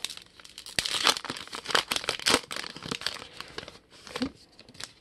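A pack of 2021 Topps Archives baseball cards being opened by hand: the wrapper crinkles and tears and the stack of cards rustles as it is pulled out and fanned. It is a run of sharp crackles that dies away just before the end.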